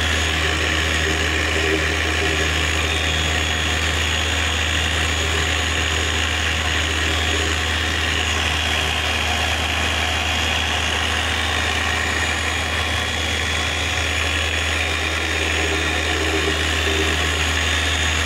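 Electric pad polisher running steadily, buffing a headlight lens with cutting compound on the first cut.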